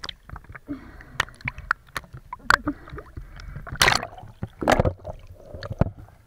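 Sea water splashing and sloshing around a small boat, with irregular clicks and knocks, loudest about four and five seconds in.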